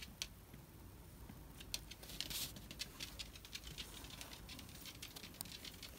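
Faint, irregular clicking and tapping of a small dog's claws on a tiled floor, with a brief rustle about two seconds in.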